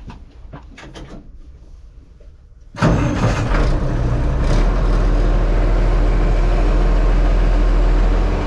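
A few light clicks and knocks, then about a third of the way in a farm tractor engine starts suddenly and runs on steadily.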